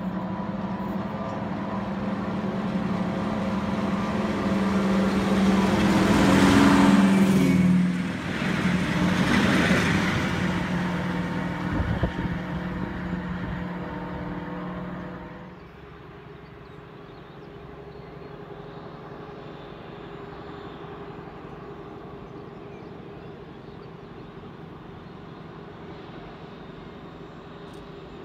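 Diesel locomotive engine working hard as the train approaches and passes close by, loudest about seven seconds in, its engine note dropping in pitch as it goes past. The sound then falls away sharply about halfway through, leaving a quieter steady rumble of a distant train.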